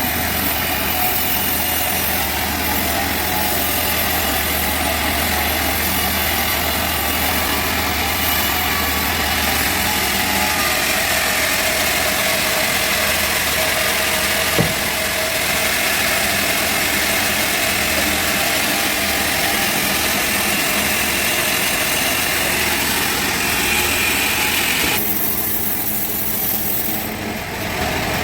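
Sawmill machinery running steadily, an engine hum under a continuous mechanical noise, with one sharp click about halfway through and a shift in the sound near the end.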